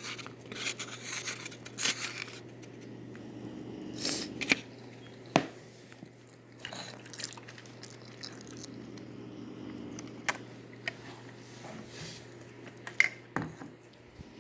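Close-up eating sounds: someone chewing plain noodles, with scattered sharp clicks and scrapes.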